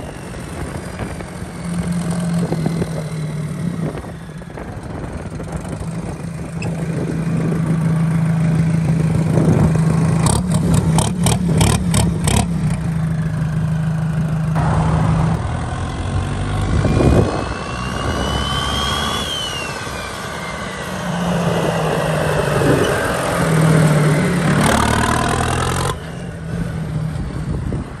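Mahindra tractor's diesel engine running steadily as it drives, with a short run of rattling clicks about ten seconds in and a brief whine that rises and falls past the middle.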